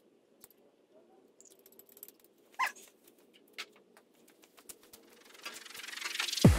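Scattered light clicks and knocks of car body parts being handled, with one louder sharp knock about two and a half seconds in. Near the end a rising swell of noise builds up.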